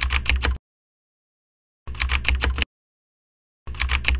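Typing sound effect: rapid keystroke clicks in three short bursts, each under a second and about two seconds apart, with dead silence between.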